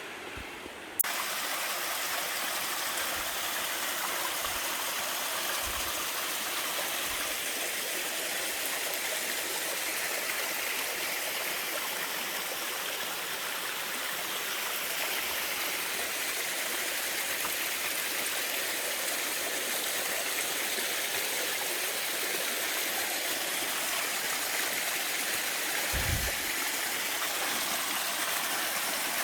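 A stream rushing steadily, a full, even sound of running water that starts abruptly about a second in.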